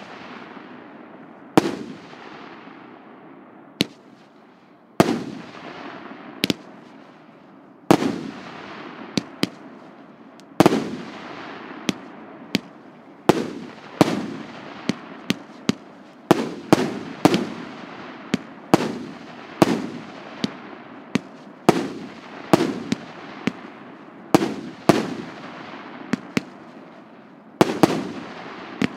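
PC9530 'KPSS' fireworks battery, a 100-shot 1.5-inch consumer cake, firing: sharp bangs at uneven intervals, each trailing off over about a second. The shots come a second or two apart at first and much faster from about halfway through.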